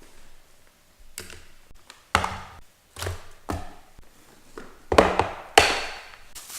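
A series of irregular knocks and thunks, about half a dozen, each dying away quickly, the loudest ones near the end.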